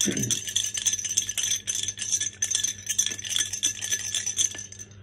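The last three raffle chips rattling inside a lidded ceramic jar as it is shaken hard to mix them before a draw: a fast, dense run of clinks with a slight ringing from the jar, which stops shortly before the end.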